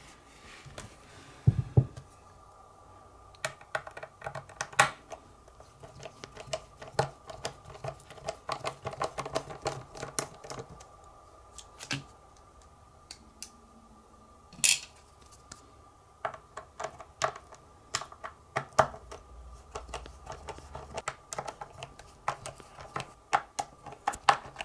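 Irregular small clicks and taps of a screwdriver working Torx screws loose from the plastic casing of a Logitech Squeezebox Boom radio, with the loosened panel parts handled, and a few sharper single clicks among them.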